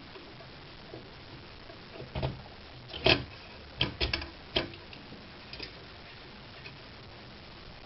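Screwing down the mounting screws of a CPU fan: a handful of short, sharp clicks and taps at irregular spacing, the loudest about three seconds in.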